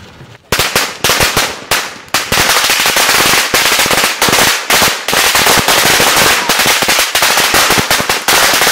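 Bundles of matchbox firecrackers going off one after another in a dense, rapid string of loud sharp bangs, set off by a spinning ground chakri whose hiss is heard for the first half second.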